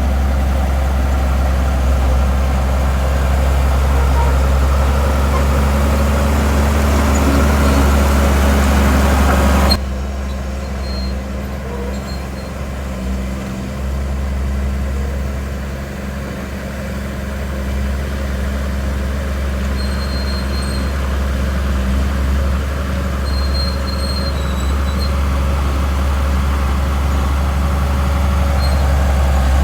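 Heavy diesel earthmoving machinery running with a steady low engine drone. About ten seconds in, the harsher noise on top cuts off abruptly, leaving a quieter engine sound that builds again toward the end.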